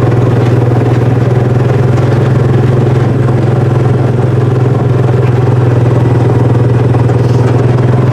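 Utility vehicle (farm Mule) engine running steadily as it drives along a farm lane.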